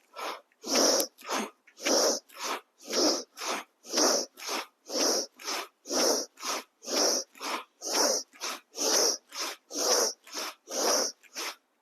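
Bhastrika pranayama (bellows breath): a woman's forceful breaths through the nose, a sharp inhale and a sharp exhale in quick succession, about one full breath a second, alternating stronger and weaker strokes. About a dozen rounds, stopping abruptly near the end.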